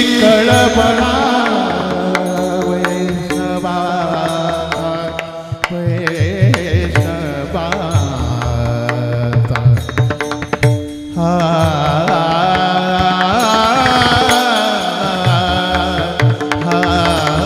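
Varkari kirtan chal: men's voices singing a devotional melody, with small brass talas clashing in rhythm and a mridang drum. The music drops back briefly about eleven seconds in, then the singing picks up again.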